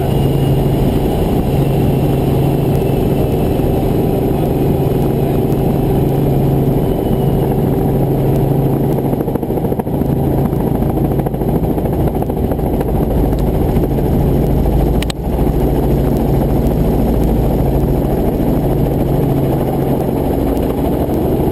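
Helicopter engine and rotor running steadily, heard from inside the cabin as it descends to land, with a steady low hum. A single brief click about two-thirds of the way through.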